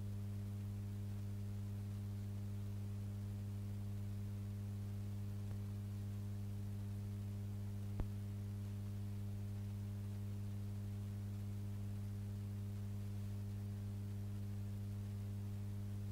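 Steady low electrical mains hum with a stack of buzzing overtones, unchanging throughout, broken by a single click about halfway through.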